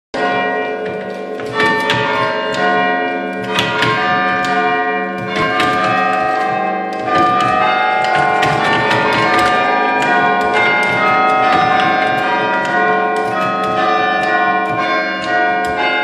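Church chime bells playing a melody, worked by hand from a lever chime stand. Each note is struck in turn and rings on under the next, so the tones overlap.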